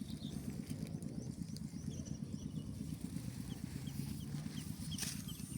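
A small engine idling steadily, with faint short high chirps over it.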